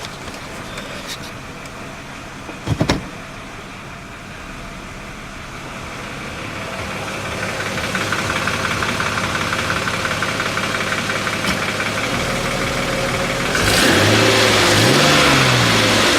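Mercedes M112 V6 petrol engine idling in drive with a knock that the owner puts down to a worn hydraulic lifter. There is a short thump about three seconds in, the engine gets louder from about eight seconds in, and near the end it revs up and back down.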